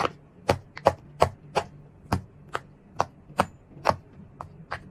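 Bubbles of a large silicone pop it fidget toy being pushed in one after another by fingers, a sharp pop about three times a second at an uneven pace, some pops louder than others.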